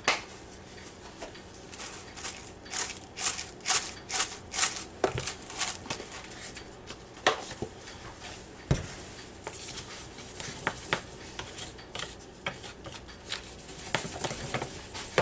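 A paper bag of flour rustling as it is shaken and tipped into a bowl of flour, in a run of short rustles, with one knock a little under nine seconds in. Near the end a wire whisk scrapes and clicks lightly as it stirs the dry flour.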